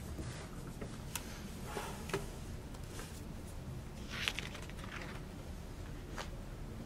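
Soft paper rustles and light taps over steady room noise. The loudest rustle comes about four seconds in, as a page of a spiral-bound card booklet is flipped over.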